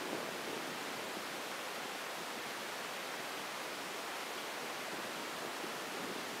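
Steady, even hiss of open sea water and moving air, with no distinct splash, call or other event standing out.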